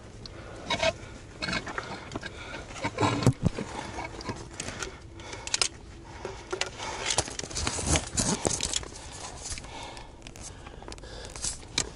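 Irregular scraping, rustling and clicks of a climber moving up a rock face.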